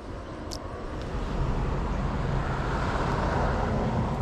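A motor engine running steadily nearby, its noise growing louder about a second in, as of a vehicle or motorboat passing.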